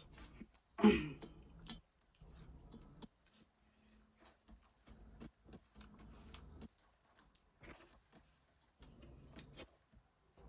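Steady high chirring of crickets, with soft eating sounds on top: fingers picking food off a steel plate, small clicks and chewing. A loud, short mouth sound comes about a second in.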